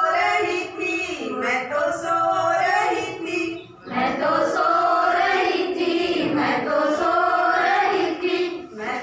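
A group of women singing a song together in unison, with a short break about four seconds in.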